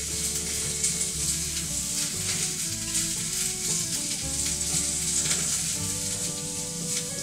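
Background music: a slow melody of held notes over stepping bass notes, with a steady high hiss throughout.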